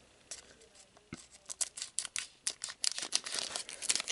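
Foil wrapper of a Pokémon card booster pack crinkling and tearing as it is opened by hand: sharp crackles, sparse at first and coming thick and fast from about a second and a half in.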